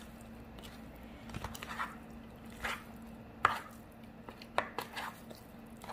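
Raw seasoned monkfish chunks being tossed by hand in a small plastic bowl: short, irregular wet slaps and light clicks as the pieces hit each other and the bowl, over a faint steady hum.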